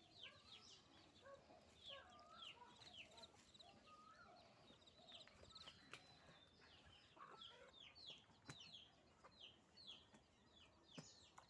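Faint chickens in the background: a steady run of short, high, falling peeps, a couple a second, with some lower clucking.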